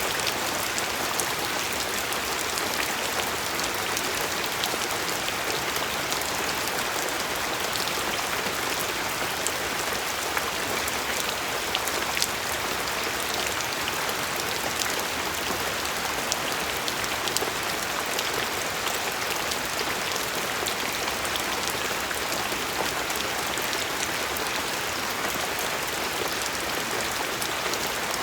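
Steady rainfall, a dense even hiss with many individual drops pattering on a surface.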